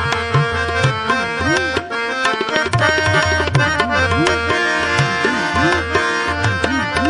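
Instrumental kirtan music: tabla playing a steady rhythm, the bass drum's pitch sliding up and down in repeated swoops, over held harmonium notes.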